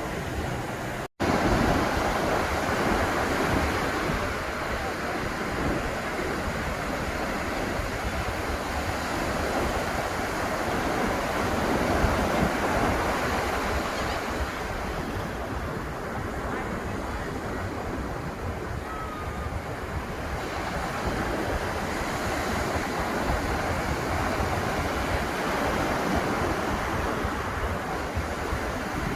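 Atlantic surf breaking and washing up the beach, a steady rush that swells and eases slowly. The sound cuts out for an instant about a second in.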